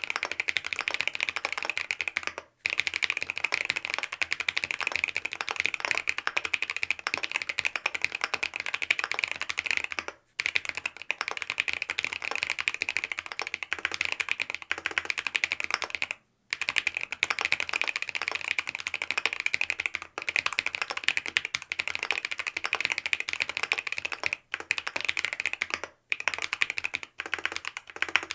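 Fast, continuous typing on a Mont Cervin custom mechanical keyboard with BSUN OG Holy Panda tactile switches, lubed with Tribosys 3204, mounted on a polycarbonate plate with foam dampening. The clicks run in rapid streams, with short pauses about two and a half seconds in, around ten seconds and around sixteen seconds.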